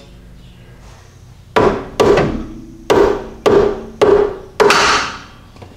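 Hammer knocking the old track bar out of its axle-side bracket: six sharp metal-on-metal blows about half a second apart, each followed by a brief ring, starting about a second and a half in.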